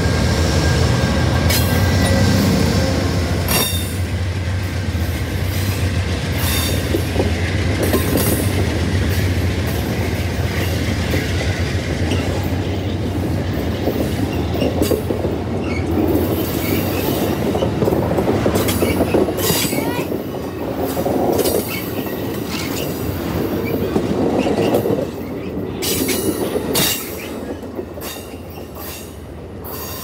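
Amtrak passenger train rolling past at close range. The diesel locomotive's engine hum is heard at the start, then the passenger cars go by with wheels clicking over rail joints and squealing on the rails. The sound fades over the last few seconds as the train pulls away.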